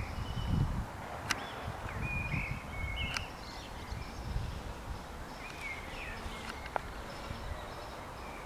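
Small birds chirping in short, scattered calls, over a low rumble, with a few sharp clicks.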